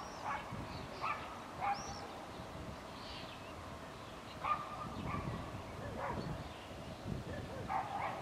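A dog barking: several short barks at irregular intervals.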